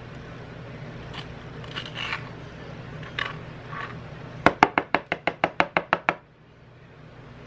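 An avocado tool scraping avocado flesh from the skin, then about a dozen quick taps of the tool against the bowl rim, roughly seven a second, knocking the flesh off.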